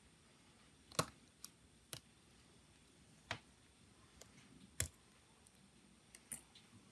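Scattered sharp clicks and taps, about seven in all, as metal tweezers and small parts of an opened Samsung Galaxy S7 Edge are handled. Two louder clicks come about a second in and near the five-second mark; the rest are lighter ticks.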